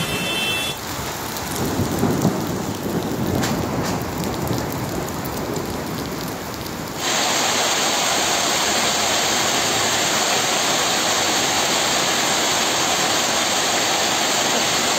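Hailstorm: hail and heavy rain falling in a steady hiss, with a couple of sharp knocks about three and a half seconds in. About seven seconds in it cuts to a louder, brighter, even downpour of rain and hail.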